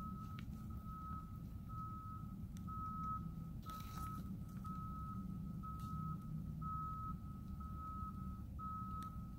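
Vehicle reversing alarm beeping steadily at one pitch, about one beep a second, over a low rumble.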